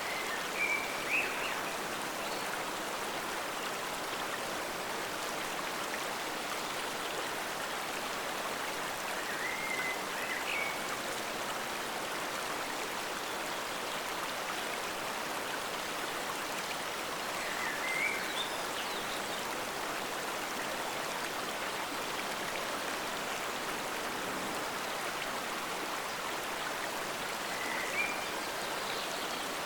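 Steady rushing of a forest stream. A short, high chirping call rises above it four times, about every eight to ten seconds.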